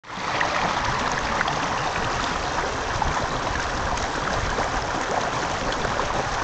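Steady rushing of running water, like a small stream, starting abruptly.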